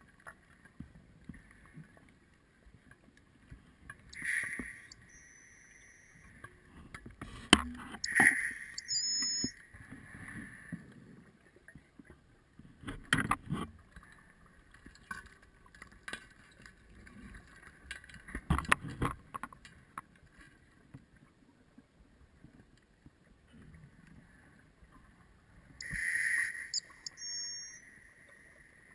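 Scuba diver breathing through a regulator underwater: a few hissing inhalations with a faint thin whistle, and low rumbling bursts of exhaled bubbles, a few seconds apart.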